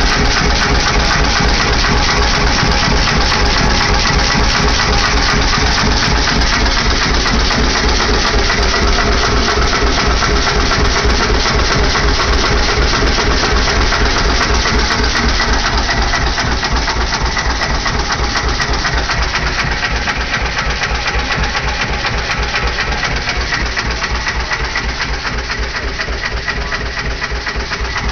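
McCormick-Deering 1½ hp Type M single-cylinder hit-and-miss engine running steadily under load, belted to a pump jack pumping water, with an even, rapid beat. It gets a little quieter in the second half.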